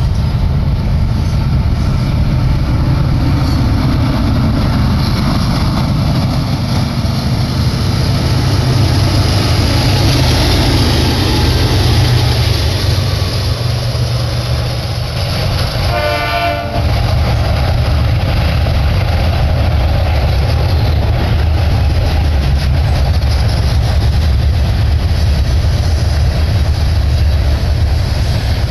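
BNSF double-stack container train passing close by: a loud, steady rumble and rattle of the wheels and cars on the rails. A group of diesel locomotives, the train's distributed-power units, goes by around the middle, and a brief higher tone sounds about sixteen seconds in.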